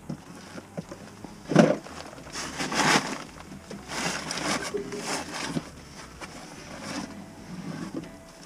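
Scuffing and rustling of a person crawling over the dirt and gravel floor of a crawlspace, in a handful of short irregular bursts.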